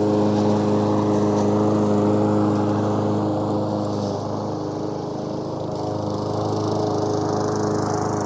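Lawnmower engine running steadily; its note wavers and drops slightly around the middle before settling again.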